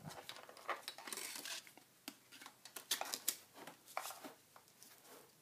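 Handling noise: scattered clicks, taps and rustling, with a denser rustle about a second in and a few sharper clicks around three and four seconds in.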